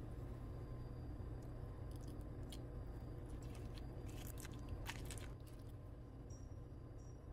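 A knife and fork cutting through a crispy breaded chicken cutlet, the fried crust crunching and crackling, loudest about four to five seconds in, over a low steady hum.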